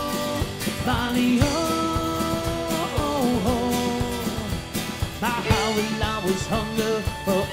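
Live Celtic folk song: a man singing long, held notes over a strummed acoustic guitar and band accompaniment.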